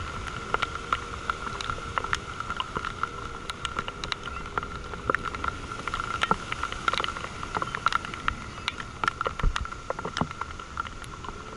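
Wind buffeting a camera mounted on a parasail's straps in flight, with dense irregular crackling and clicking from the mount and lines and a steady thin whine underneath.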